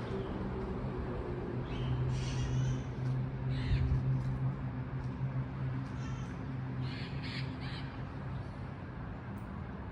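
Yellow-collared macaw giving several short, harsh squawks, over a steady low hum.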